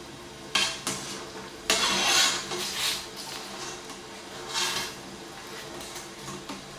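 A mesh strainer sloshing through a pot of boiling water, with several bursts of splashing as it scoops out vegetable slices. Light clinks of metal against the pot sound with them.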